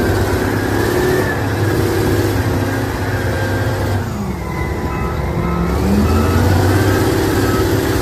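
Diesel engine of a giant Caterpillar wheel loader running loud and steady, a little louder in the second half.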